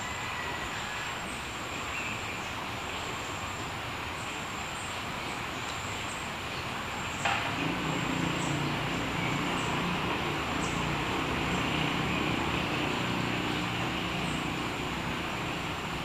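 Muddy stream flowing with a steady rushing hiss, under a continuous high-pitched insect buzz. A sharp click about seven seconds in, after which a low rumble grows louder.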